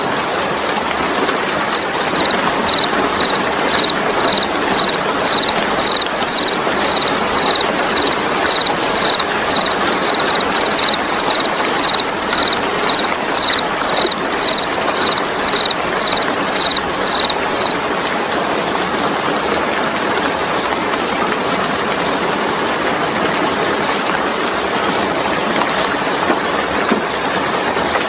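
Steady rain falling. A high, pure chirp repeats about twice a second from about two seconds in until a little past halfway, then stops.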